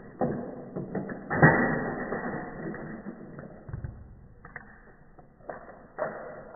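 Plastic clicks and clatter from a toy race car track set, with a sharp knock about a second and a half in and a few lighter clicks later. The sound is dull and muffled.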